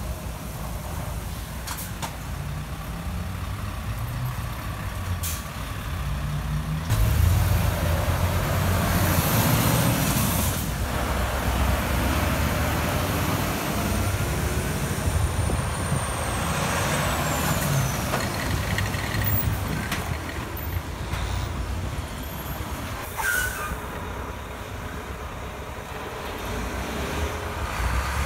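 Heavy diesel trucks passing close by on wet road: a Scania tanker truck-and-trailer unit runs past with its engine and tyres, louder from about a quarter of the way in, and a logging truck pulls through near the end.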